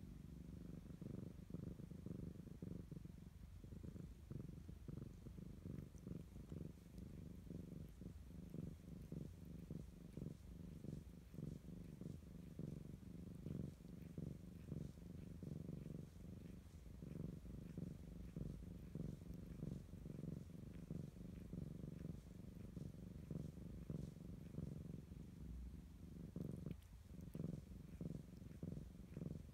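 Calico cat purring steadily: a low, fast, even purr, pausing briefly near the end.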